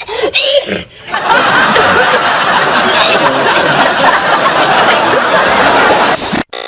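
Sitcom studio audience laughing: a dense wash of laughter from many people, running about five seconds before it cuts off abruptly.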